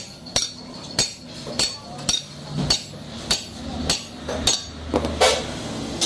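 Hammer blows on the end of a motorcycle crankshaft, driving the flywheel half onto the shaft during crankshaft assembly: about ten steady strikes, roughly two a second, each with a short metallic ring.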